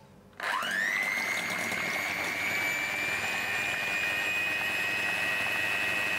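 Electric hand mixer switched on about half a second in, its motor whine rising quickly to speed and then running steadily as the beaters whip fresh cream.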